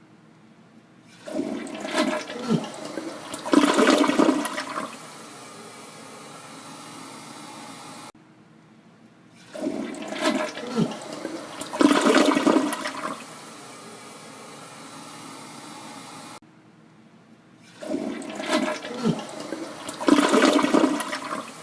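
Toilet flushing three times in a row. Each flush is about eight seconds long: the water rushes in surges, is loudest midway, then settles to a steady quieter rush of water before cutting off.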